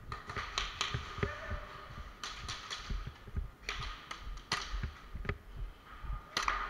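A dozen or so sharp clicks and taps, irregularly spaced, over a faint steady hum, heard during an indoor airsoft skirmish.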